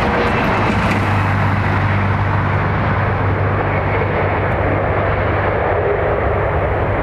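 Airbus A321neo jet airliner's engines rumbling steadily with a low hum as it rolls out along the runway just after touchdown.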